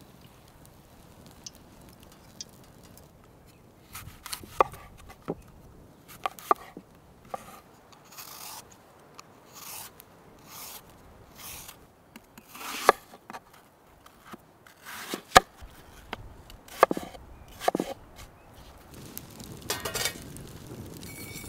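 A vegetable peeler scraping strips of skin off a green apple in short, irregular strokes. Near the end a steel frying pan is set down, scraping on a metal plate by the fire.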